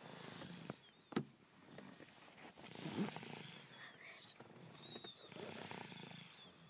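A child snoring in sleep: slow snoring breaths, with a sharp click a little over a second in and a louder snore about three seconds in.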